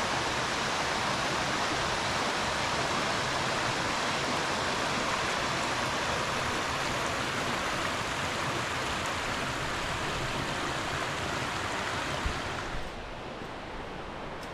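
Water of a small woodland creek rushing over rocks in a steady hiss. Near the end it drops noticeably quieter.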